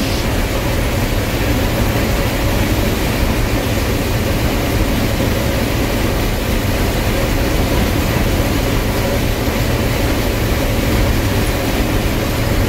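Gleaner combine harvesting corn, heard from inside the cab: the engine and threshing machinery run in a steady, loud drone with a low rumble.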